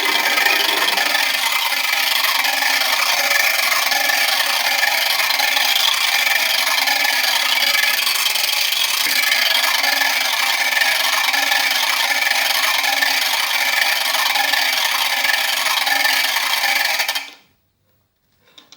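A homemade 36-way motorized rotary switch running, driven by a 12 V, 60 rpm geared DC motor fed from a 9 V battery. It gives a steady mechanical noise as the gearbox turns and the wiper rubs across the contacts, then cuts off abruptly about a second and a half before the end.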